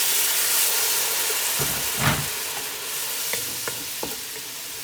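Spice masala sizzling in hot oil just after a splash of water goes in, the hiss loud at first and dying down. A spoon knocks the pan about two seconds in, then taps and scrapes a few times as the masala is stirred.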